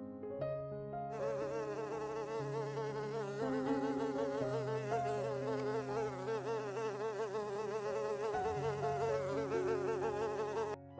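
Honeybees buzzing around their hive entrances, a dense hum that wavers in pitch as bees fly past, starting about a second in.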